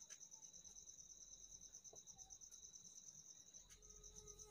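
Near silence with a cricket chirping faintly: a high, rapidly pulsing trill that holds steady throughout.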